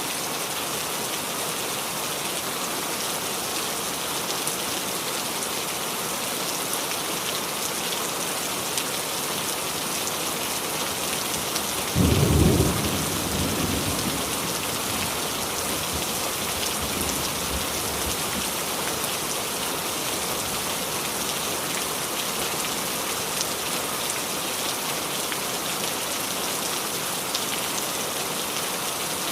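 Steady rain falling on a small tree. About halfway through, a single loud clap of thunder that rumbles away over several seconds.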